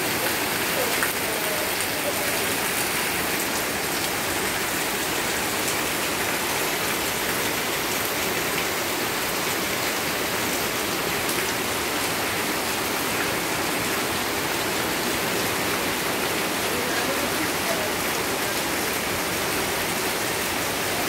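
Heavy rainy-season downpour: steady rain falling on wet pavement and leafy shrubs.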